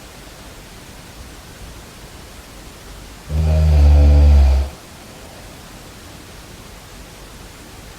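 Snoring: one low snore lasting just over a second, about halfway through, with a faint steady hiss before and after it.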